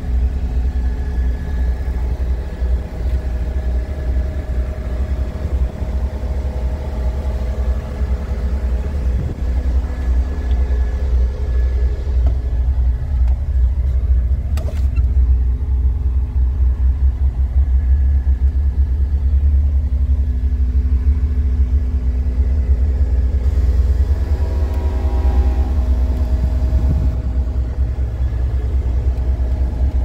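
Caterpillar 272D2 skid steer's diesel engine running, heard from inside the operator's cab as a steady low drone, with a single click about halfway through.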